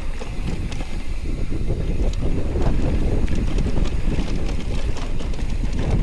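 Wind buffeting the microphone: a steady low rumble with a hiss above it, broken by scattered light clicks and rattles.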